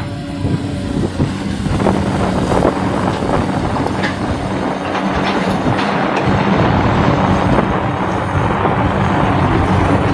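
Caterpillar hydraulic excavator working close by: its diesel engine runs steadily under load with a constant hum, and scattered knocks and scrapes come from the bucket working in rock.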